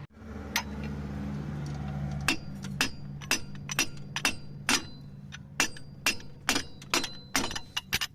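Sharp metal-on-metal clinks, about two a second, each with a short high ring, beginning about two seconds in over a steady low hum.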